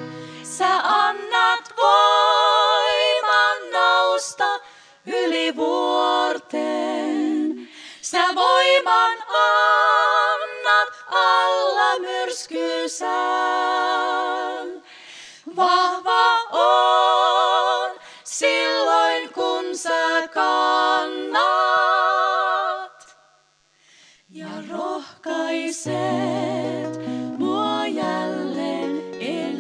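Three women singing a song together in close harmony, with vibrato. Acoustic guitars strum chords at the start and again near the end but are nearly absent in the long middle part, where the voices carry the song almost alone; a short break in the singing comes near the end before voices and guitars come back in.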